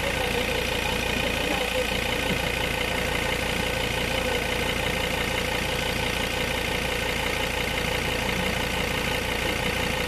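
Ford Everest's diesel engine idling steadily.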